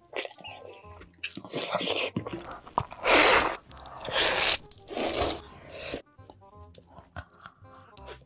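Close-miked eating sounds: loud crunching bites and chewing into sauced fried chicken, three big crunches in the middle, over background music.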